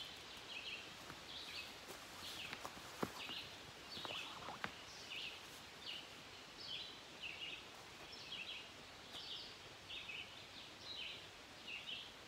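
A bird calling with short high chirps, repeating steadily about twice a second, over quiet woodland background. Two sharp clicks come about three and four and a half seconds in.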